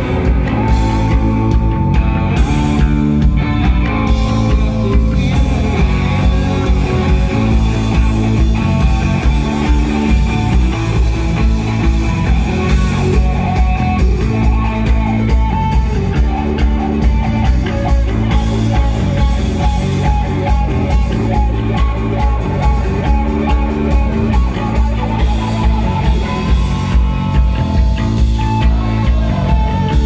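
Rock band playing live: distorted electric guitars over a steady, driving drum beat.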